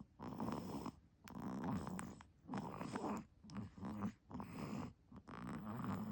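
A sleeping baby snoring: a soft rattling snore on each breath, about six in a row, roughly one a second.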